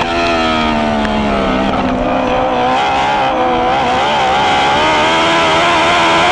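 Onboard sound of a dwarf car's motorcycle engine racing: the revs fall for about two seconds as the driver lifts off, then climb back and hold high as he gets back on the throttle.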